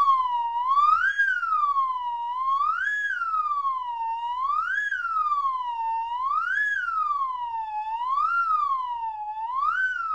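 Slide whistle blown without a break, its pitch swooping up quickly and then sliding more slowly back down, six times in a row at about one swoop every two seconds.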